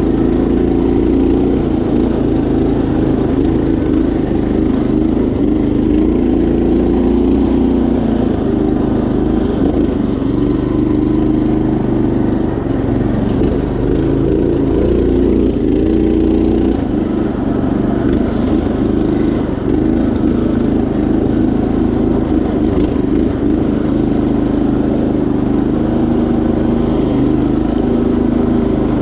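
Predator 212 single-cylinder engine on a Craftsman GT5000 riding mower running steadily under load as the mower is driven, its pitch wavering slightly with the throttle and terrain.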